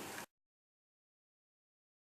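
Silence: faint, even ticking of the mantel clock cuts off abruptly about a quarter second in, and the rest is dead silence.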